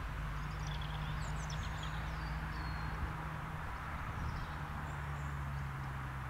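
Cessna Citation 525 business jet's twin turbofans running at low taxi power: a steady distant rush over a low steady hum. Small birds chirp now and then over it.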